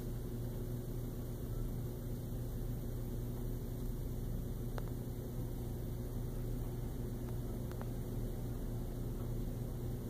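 A steady low electrical-sounding hum over a constant faint hiss, with a couple of faint clicks about halfway through.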